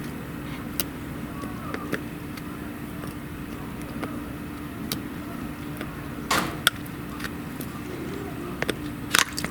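Scattered small clicks and knocks of a tractor's plastic diesel fuel filter and its housing being worked loose by hand, the loudest a pair about six and a half seconds in, over a steady low hum.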